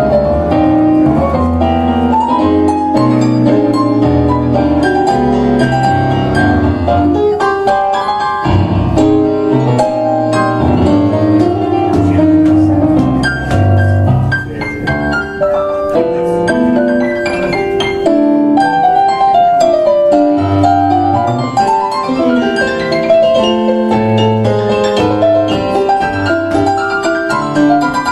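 Two pianists playing a tango as a duet on digital stage pianos, one a Kawai MP6, with bass lines under a busy melody. There is a fast rising run about two-thirds of the way through.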